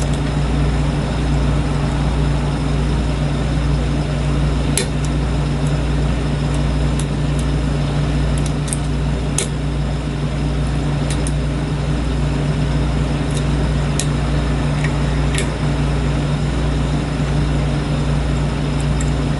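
Steady low hum throughout, with scattered faint clicks of a steel hook pick tapping and lifting the pin tumblers inside a lock cylinder while single-pin picking.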